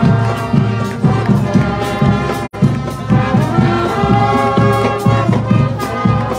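Marching band playing: brass section holding chords over the drumline's snare and bass drum beat. The sound drops out for an instant about two and a half seconds in.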